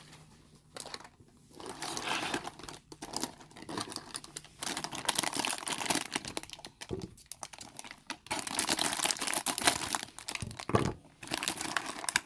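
Foil blind-bag packet being crinkled and torn open by hand, irregular crackling that is busiest in the second half.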